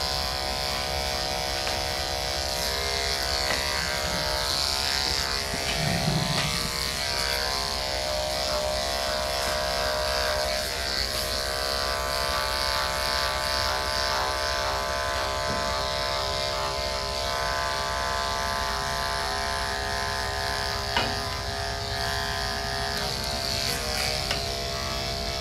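Andis AGC two-speed electric dog clipper running with a steady hum as it shaves through a dense, thick coat.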